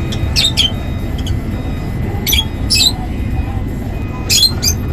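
Lovebirds giving short, sharp, high-pitched chirps, about six of them in small clusters, over a steady low hum.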